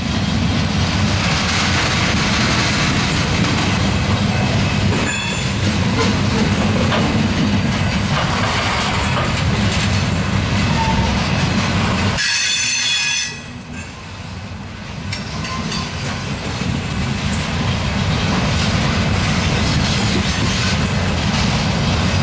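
Loaded coal cars of a freight train rolling past close by: a steady rumble and clatter of steel wheels on the rails. About halfway through, a high wheel squeal rings for about a second while the rumble dips, then the rumble builds back up.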